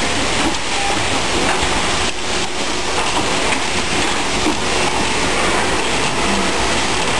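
Steady din of a garment factory floor: many machines running together in a dense, even noise, with faint irregular clicks and knocks.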